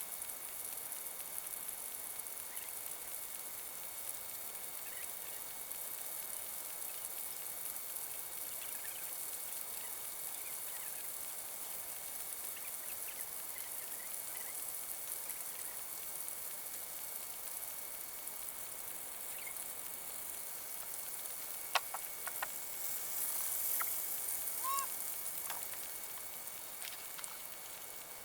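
Steady outdoor hiss with a faint steady high tone and scattered faint chirps. A few sharp clicks come a little over 20 seconds in.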